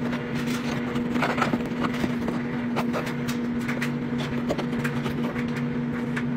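A plastic scoop digging into a box of powdered laundry detergent, with the granules crackling and pouring off the scoop in short scattered bursts. A steady machine hum runs underneath.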